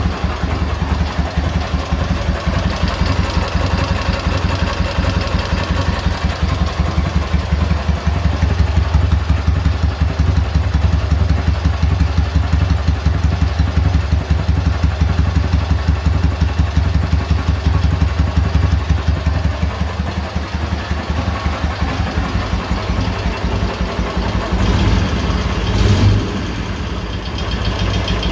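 K-750 motorcycle's side-valve flat-twin engine idling with an even, steady beat and no knock, its crankshaft timing gears freshly replaced. Near the end the engine note briefly rises a couple of times.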